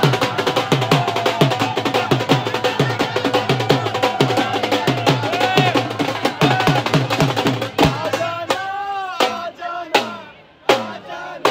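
A dhol drum beaten in a fast, driving rhythm, with a crowd's voices chanting and shouting over it. The drumming and voices drop away briefly near the end.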